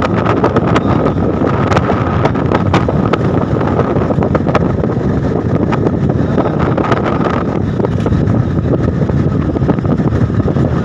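Wind buffeting and rushing over a phone's microphone held at the open window of a vehicle travelling at highway speed, over a steady rumble of road and engine noise, with frequent short crackles from the wind gusts and a faint steady whine.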